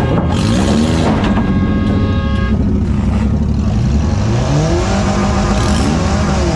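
Compact demolition derby car's engine revving up and down repeatedly, heard from inside its gutted cabin, with a couple of sharp knocks in the first second and a half.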